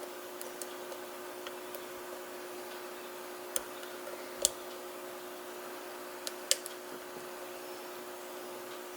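Small sharp clicks and ticks of a lock pick working the inner pins of a Mul-T-Lock pin-in-pin cylinder held under tension, a handful spread out with the loudest about four and a half seconds in and a close pair about six and a half seconds in. A steady faint hum runs underneath.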